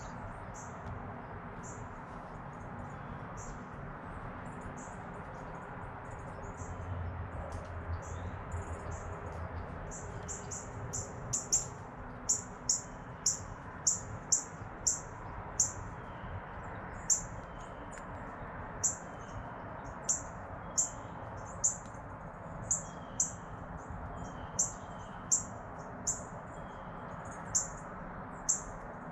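A small bird giving short, high chirps over and over, starting about ten seconds in and coming roughly one or two a second, over a steady outdoor background hum.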